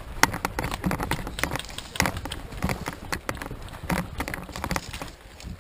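Running footsteps: an uneven run of thuds and clicks from a player moving quickly.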